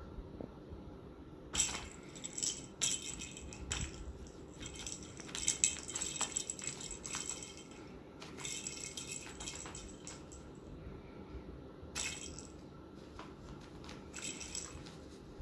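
Small jingle bell inside a cat's toy ball jingling and rattling in irregular bouts as a kitten bats it around, busiest in the first half, then a couple of short jingles near the end.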